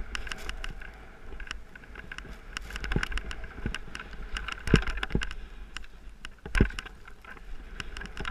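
Skis running through deep powder snow, a steady rushing hiss mixed with wind, broken by many small clicks and a few heavier knocks, the strongest about three, five, six and a half and eight seconds in.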